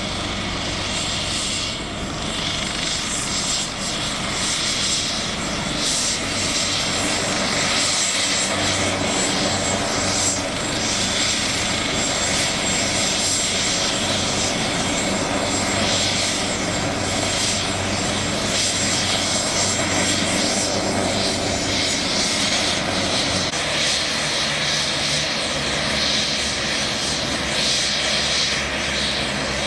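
MH-139 Grey Wolf helicopter running on the ground as it taxis, its turboshaft engines and main and tail rotors making a steady noise. A thin high whine sits over it and fades out a little past two-thirds of the way through.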